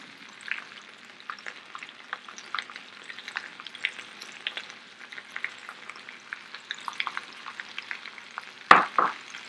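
Sliced potato galettes frying in oil in two skillets, one nonstick and one cast iron. They give a steady sizzle dotted with many small crackles and pops. Near the end there is a single louder knock.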